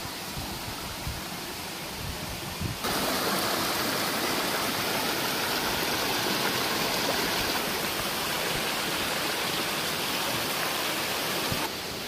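Rocky forest stream rushing over boulders, a steady hiss of flowing water. About three seconds in it suddenly becomes louder and fuller, and it drops back just before the end.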